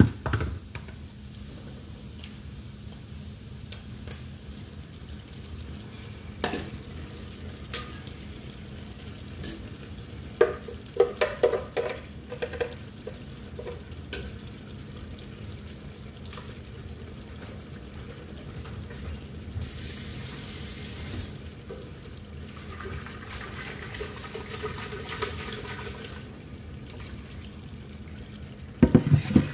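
Red sauce poured from a blender jar into a hot pan of rice, sizzling, while a spoon stirs and knocks against the metal pan, with a burst of clattering about a third of the way in and a final knock near the end.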